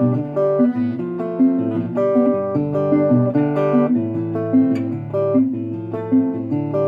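Resonator guitar played with a pick, a run of picked notes over a moving bass line. The notes sound shaky, which the player puts down to the camera's microphone being unable to handle the resonator's chorus.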